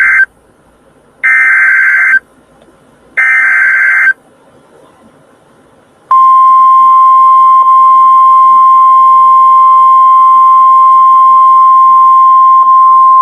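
NOAA Weather Radio alert signal through a weather radio's speaker: the end of one burst and then two more roughly one-second bursts of warbling SAME data tones, a second apart. About six seconds in, the steady, loud 1050 Hz warning alarm tone starts. Together they mark the start of a new severe weather warning.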